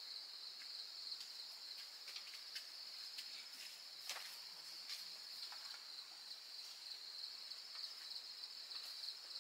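Steady high-pitched chorus of insects shrilling, with scattered light clicks and taps over it, one a little sharper about four seconds in.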